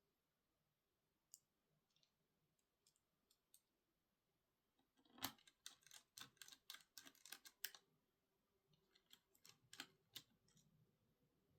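Faint, sharp clicks and taps of small tools and parts being handled during laptop repair work. A few scattered clicks come first, then a quick run of about a dozen clicks in the middle, then a few more.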